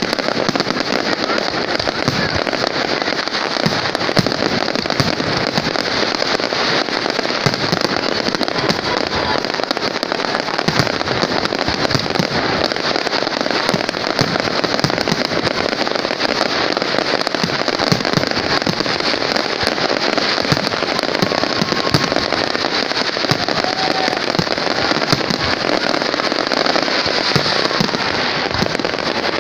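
Aerial fireworks display: a dense, unbroken barrage of shell bursts and crackling, many going off at once, with no pause throughout.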